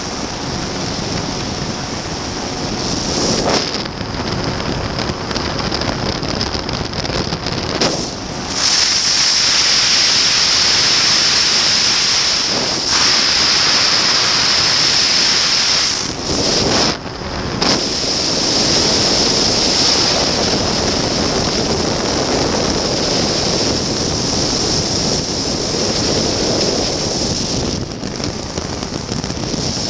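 Airflow rushing and buffeting over the microphone of a camera on an open flexwing microlight trike in flight, with the Rotax 912 engine running beneath it. The rush dips briefly a couple of times.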